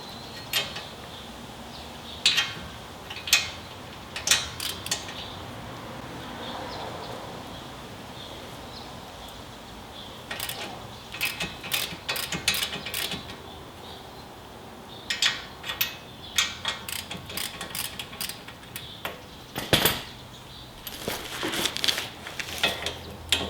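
Hand tools and steel suspension parts clinking and knocking during front strut and spring work: irregular sharp metallic clicks, coming in clusters with short pauses between.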